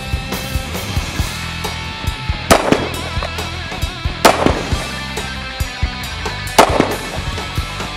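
AR-15 rifle firing about five loud shots, two in quick succession, then a single shot, then another quick pair, over background music.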